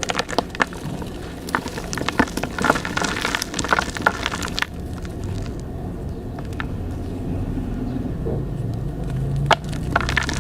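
Slime being squeezed and pressed by hand, giving a run of sharp crackles and pops. The crackling is dense over the first few seconds, thins out in the middle, and picks up again near the end.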